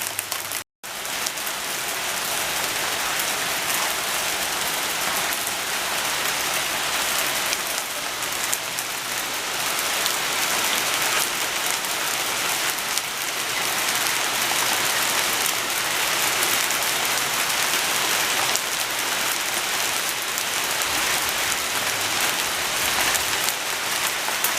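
Heavy hail falling, a dense, steady hiss of countless small ice impacts. It cuts out for a split second under a second in.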